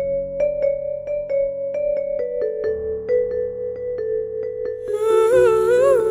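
Music: an electronic keyboard plays a soft intro of quick repeated notes, about four a second, over a held tone. About five seconds in, a woman begins humming the melody over it.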